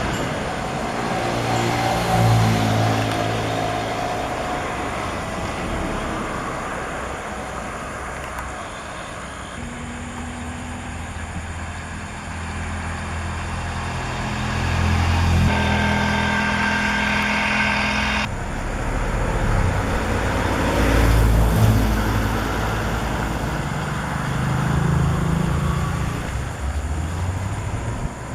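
Road traffic: motor vehicle engines running and passing, their pitch shifting as they go by, over a steady traffic hum.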